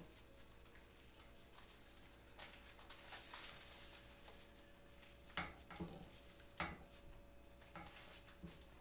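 Quiet kitchen handling: a few soft taps and knocks of hands rolling up a pounded chicken breast with ham and cheese on a board, over a faint steady hum.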